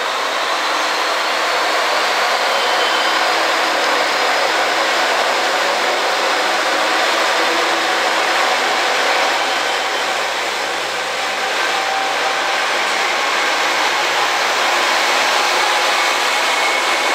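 Diesel engines of a three-car JNR KiHa 40-series railcar train working as the train pulls away from the platform and its cars pass close by: a loud, steady mechanical noise with a faint whine running through it.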